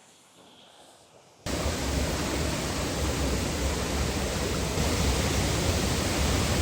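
Quiet at first, then about a second and a half in the loud, steady rush of a waterfall cuts in abruptly.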